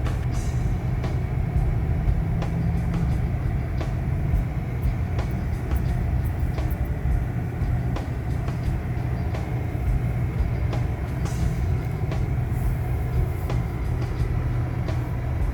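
Car driving, a steady road and engine rumble heard inside the cabin.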